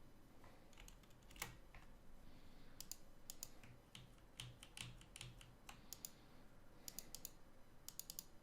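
Faint typing on a computer keyboard: irregular keystrokes, with quicker runs of taps in the second half.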